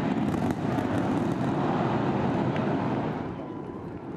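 Starship's Super Heavy booster lifting off on its 33 Raptor engines: a dense, rumbling rocket-engine noise with a few sharp crackles. It eases down in level a little after three seconds in.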